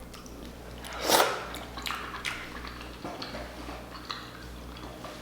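Close-up eating sounds of a person working through snow crab legs: one louder, wet-sounding noise about a second in, then scattered small clicks and smacks.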